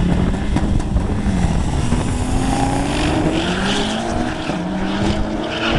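Drag-race cars launching off the line and accelerating hard down the strip. The engine pitch climbs, drops back at each gear change, then climbs again.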